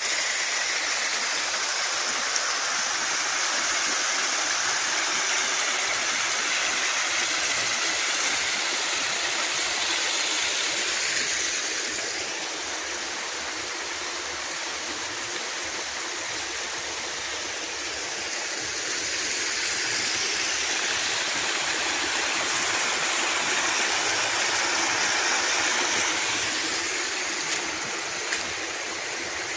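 Small waterfall cascades on a stream, water rushing steadily over rocks; it eases a little about twelve seconds in and comes back up about eight seconds later. Two faint knocks near the end.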